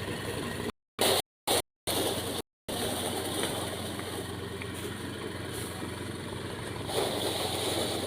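Motorised rice threshing machine running steadily, its small engine humming under the rushing noise of the machine, with a louder rush about seven seconds in. The sound cuts out to silence a few times in the first three seconds.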